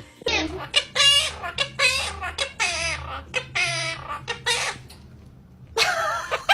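A parrot giving a quick series of short, clucking calls for about five seconds, then one more call after a brief pause.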